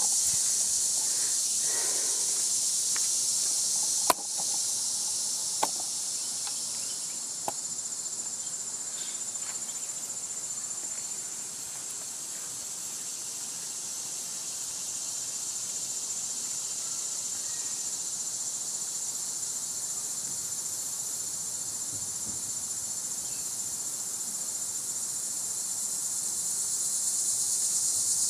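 Steady high-pitched drone of insects calling in chorus. A sharp click comes about four seconds in, and two fainter clicks follow over the next few seconds.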